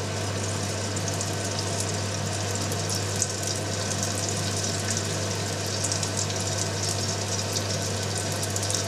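A dough-wrapped sausage deep-frying in hot oil at about 185 °C in a frying pan: the oil sizzles steadily with fine crackling.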